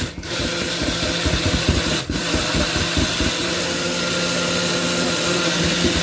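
Personal bullet-style blender motor running loud and steady as it blends a fruit drink, with a low motor hum under the whirring; the sound dips briefly twice, at the very start and about two seconds in.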